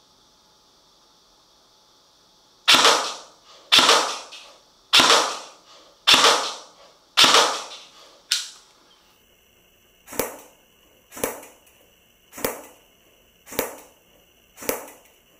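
G&G PCC45 electric airsoft gun with a suppressor fitted, firing single shots about one a second. First come five loud shots, each with a long fading tail, then five sharper, quieter cracks.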